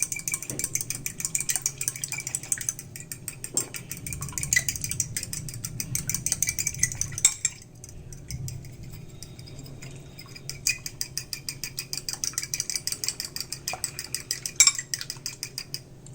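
Eggs being beaten in a bowl: fast, even clicking of the utensil against the bowl. It stops for about three seconds midway, then starts again and stops shortly before the end.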